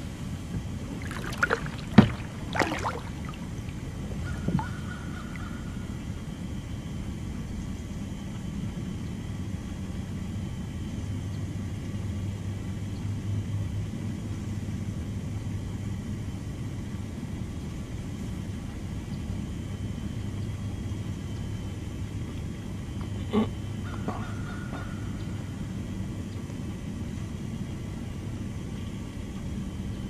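A steady low rumble like a distant engine, with a few sharp knocks in the first few seconds and one more about three-quarters of the way through. Twice a knock is followed by a brief thin high tone.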